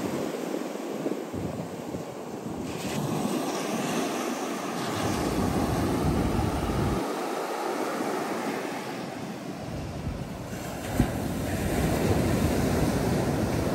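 Ocean surf washing onto a beach, swelling and easing, with wind gusting over the microphone. A single sharp click comes near the end.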